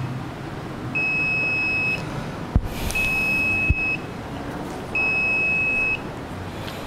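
An electronic beeper sounds a steady high-pitched beep about a second long every two seconds, three times. Two sharp knocks about a second apart fall near the middle.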